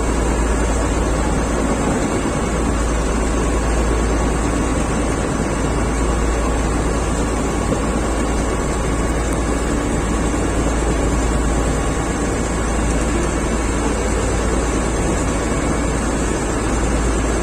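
Motor ferry's engine running steadily, heard on board, with a deep rumble under a constant rush of noise.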